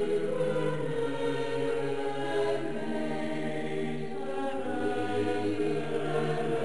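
Background music of slow, sustained choir-like voices holding chords, moving to new notes a few times.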